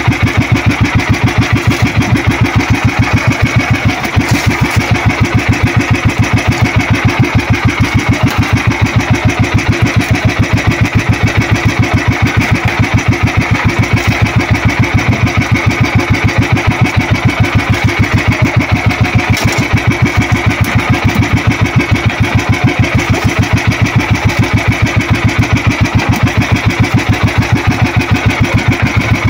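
Engine of an outrigger fishing boat running steadily under way, a fast, even chug that does not change speed.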